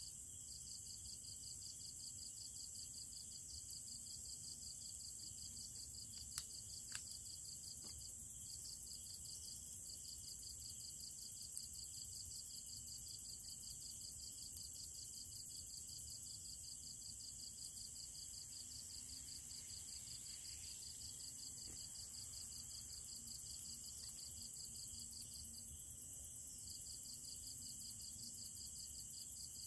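Night insects chirping in a high, rapid, evenly pulsing trill that stops briefly a few times, over a steady higher hiss, with a few faint clicks.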